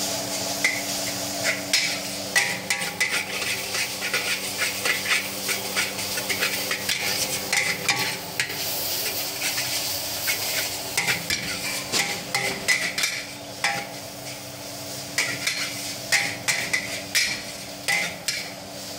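Metal spatula scraping and clanking against a wok as Maggi goreng noodles are stir-fried, with many quick knocks over a steady sizzle. A steady low hum runs underneath.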